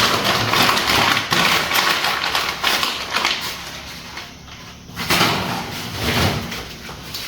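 Plastic shopping bag rustling and crinkling as groceries are taken out of it, with a quieter lull about four seconds in.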